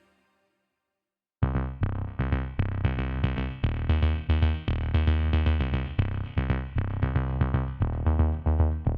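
Background music: after a second and a half of silence, electronic synthesizer music starts abruptly with a steady drum-machine beat.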